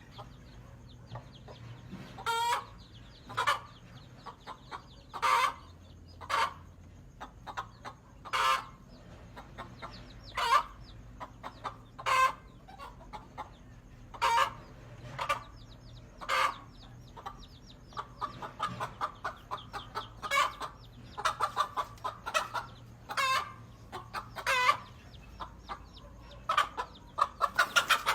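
Hen clucking in short, loud calls about every one to two seconds, the calls coming faster and more tightly packed in the second half.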